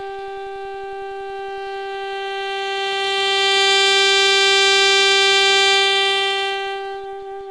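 Music: a single long held note from a wind instrument, swelling louder in the middle and easing off toward the end.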